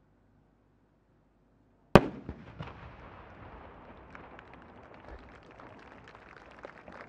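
A 10-inch (shakudama) aerial firework shell bursting with one sharp, very loud bang about two seconds in, followed by a long fading rumble with scattered small pops.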